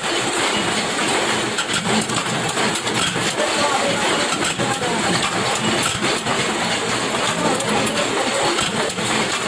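Workshop machinery running steadily: a dense, even noise with many small clicks and knocks.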